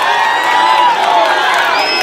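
A large crowd cheering and shouting, many voices calling out at once.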